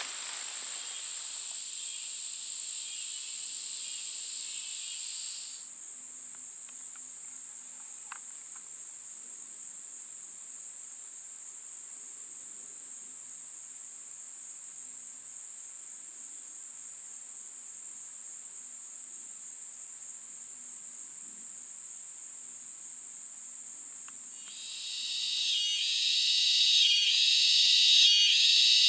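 Insects calling: a steady high-pitched trill throughout, with a second band of insect noise that stops about five seconds in. About 25 seconds in, a louder pulsing insect chorus swells up.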